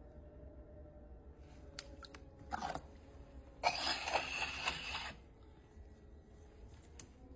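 A potter's wheel running with a faint steady hum while wet clay is worked on it: a few light clicks, a short scrape, then a louder rough scraping and rubbing noise lasting about a second and a half.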